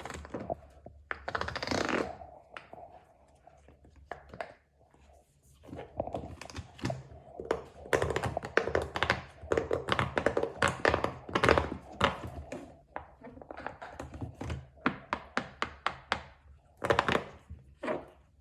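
Fidget toys being handled: a long run of quick clicks and taps, few at first and crowded together through the middle and latter part.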